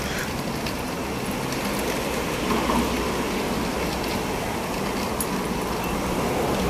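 Steady background hum of road traffic with a low rumble, and no single loud event.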